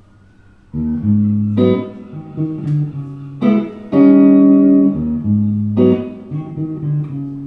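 Guitar intro: plucked notes and chords, beginning about a second in.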